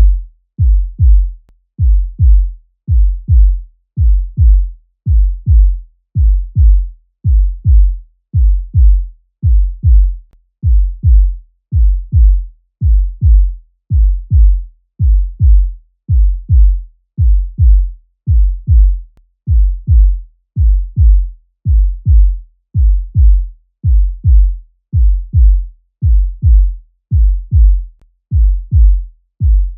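Human heartbeat sound effect: a steady lub-dub of paired low thumps, about one beat a second, with nothing else behind it.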